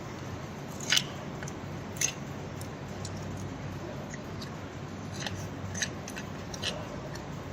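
Sharp clicks of metal surgical instruments being handled during the operation: two louder ones about one and two seconds in, and several fainter ones later, over a low steady hum.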